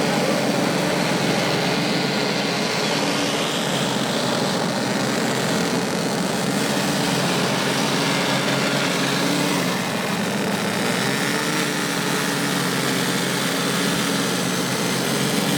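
1/6-scale RC military models running, a steady engine-like drone with hiss.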